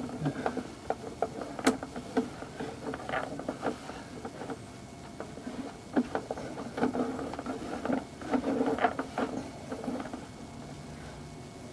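Sewer inspection camera push cable being worked back through the pipe: irregular clicking, rattling and small knocks, a few sharper clicks now and then, quieter near the end.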